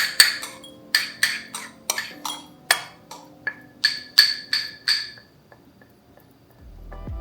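A spoon clinking against a glass jar in quick, irregular taps, each ringing briefly at the same pitch, stopping about five seconds in.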